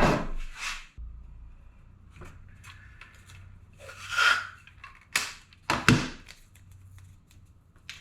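Cedar die panels handled on a workbench: a short rustle about four seconds in, then three sharp wooden clacks around five to six seconds in, over a faint low hum.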